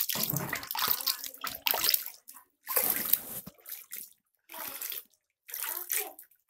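Water splashing and sloshing in a plastic baby-bath basin as hands wash a baby, in irregular bursts with short pauses between them.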